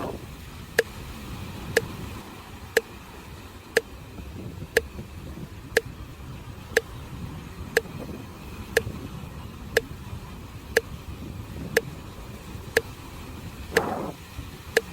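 Sharp, even ticking, one click a second, over a steady low rumble of sea surf; near the end two louder swells of noise come in, about two seconds apart.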